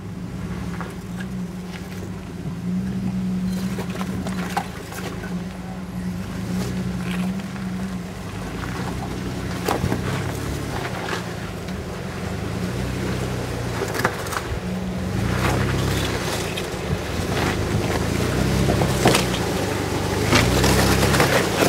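Jeep Wrangler Rubicon's engine running at low revs as it crawls over a rocky trail, the revs swelling and easing, with rocks knocking and crunching under the tyres. It grows louder near the end as the Jeep comes up close.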